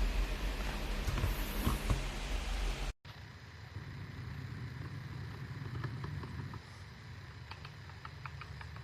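Typing on a compact 68-key mechanical keyboard: key clicks over a low hum. The sound cuts off abruptly about three seconds in, then returns as quieter, scattered keystrokes that come more often near the end.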